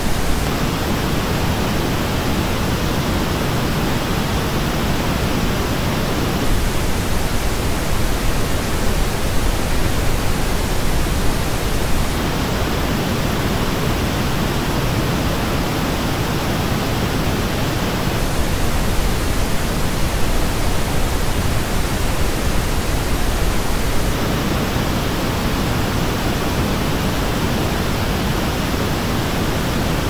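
Steady pink-noise test signal. About every six seconds it switches between the original reference noise and the same noise played through Sennheiser HD650 headphones. The headphone version has a dip in the upper treble.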